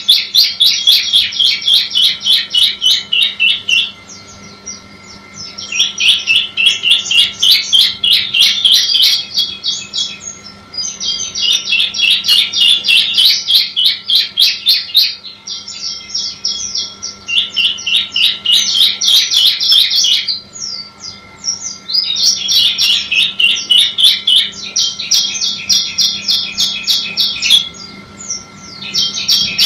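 Bar-winged prinia (ciblek) singing in repeated bouts of rapid, high chattering notes, each bout lasting several seconds with short pauses between.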